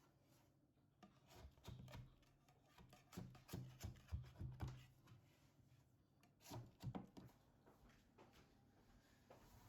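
Faint, irregular taps, clicks and soft knocks of hands handling food and kitchen utensils, busiest in the middle stretch.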